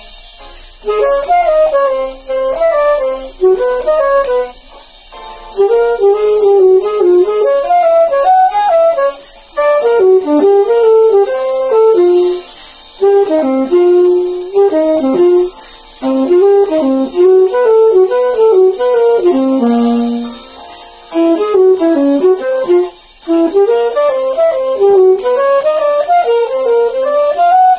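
Alto saxophone playing a jazzy melody, one line moving up and down in pitch, in phrases broken by short pauses every few seconds.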